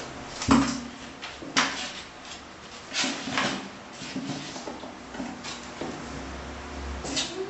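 Kittens scuffling on a tiled floor and clambering against a cardboard box: a series of irregular knocks and scrapes, the sharpest about half a second in.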